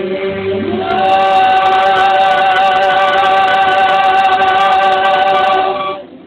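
Men's and a woman's voices singing together. After a short moving phrase they hold one long note from about a second in, which ends just before the close.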